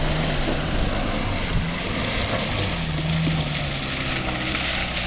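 Suzuki Vitara's engine pulling through a mud pit, its note holding steady, easing off about a second and a half in, then picking up again.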